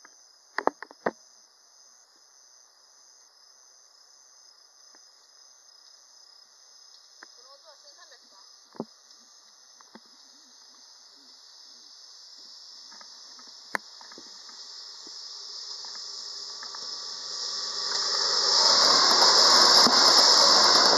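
Insects chirping steadily in a high band while an Izuhakone Railway electric train approaches, its rushing noise swelling from about two-thirds of the way through, then passing close by at speed near the end, loudest as it goes past.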